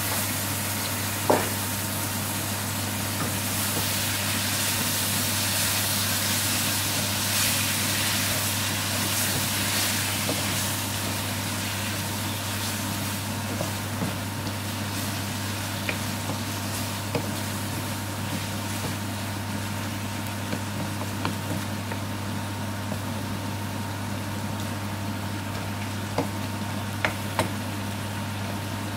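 Diced chicken breast and onions frying in a pan with a steady sizzle, over a steady low hum. A few sharp knocks of a wooden spoon against the pan while stirring, the loudest about a second in and a couple near the end.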